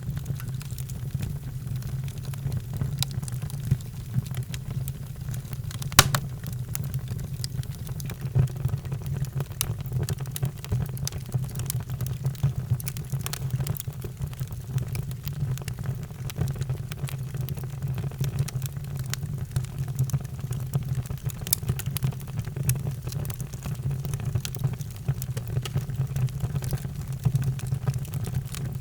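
Wood fire crackling in a fireplace: scattered sharp pops and snaps, with one louder pop about six seconds in, over a steady low rumble.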